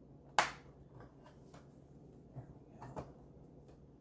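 A sharp click about half a second in, then several lighter taps and clicks: small model kit parts being handled and pressed together while fitting a roof piece that has not seated.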